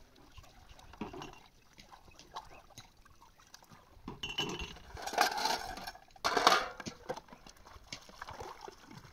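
Hand-washing dishes in a plastic basin: small clinks and knocks of steel bowls and pots with water sloshing, and two louder splashing clatters about five and six and a half seconds in.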